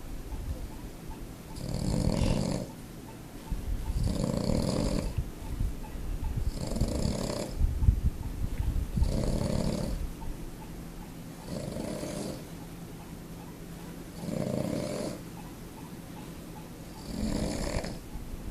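A sleeping pug snoring, one snore roughly every two and a half seconds, about seven in all. A low rumble comes in about eight seconds in.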